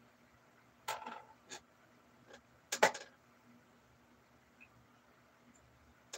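A few short sharp clicks and knocks, some in quick little clusters, the loudest about three seconds in, over a faint steady hum.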